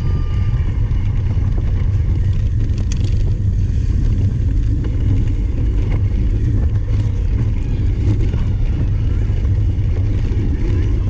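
Steady, loud low rumble of wind buffeting the microphone, with a faint hiss above it.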